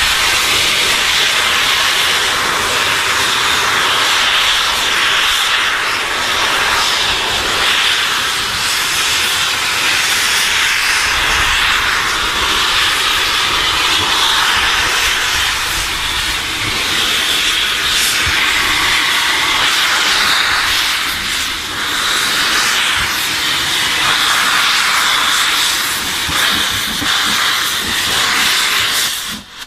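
Steam steadily hissing from the open cylinder drain cocks of an LMS Black Five 4-6-0 steam locomotive, which is clearing condensed water from her cylinders; the hiss cuts off sharply near the end.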